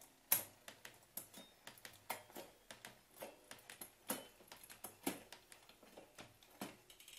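A gravel bike's drivetrain being tested on the stand: a run of irregular clicks and ticks as the cranks are turned and the gears shifted, with the chain moving across the cogs. The shifting is working cleanly.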